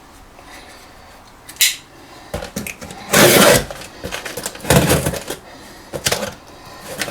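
A product box being handled: a single click, then several short bursts of scraping and rustling, the loudest about three seconds in.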